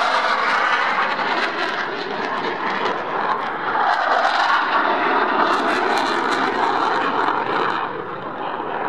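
Sukhoi Su-22 fighter-bomber's single jet engine during a display pass: a loud, continuous jet rush that swells and ebbs as the aircraft turns, easing a little near the end.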